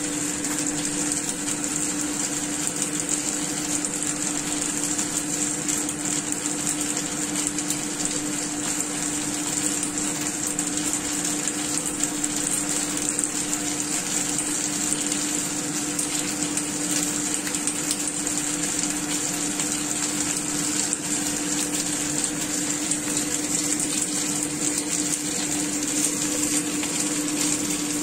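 Chicken and spring onion dumplings frying in oil in a nonstick pan: a steady sizzle with fine crackling, over a steady low hum.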